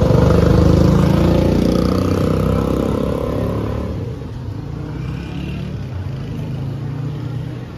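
An engine running, loudest about a second in and fading over the next few seconds to a lower steady hum.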